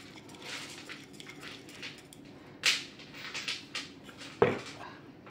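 A metal tool clinking against the nut and shaft of a vacuum cleaner motor's impeller as the nut is tightened back down, with two sharper clicks near the middle and about four and a half seconds in.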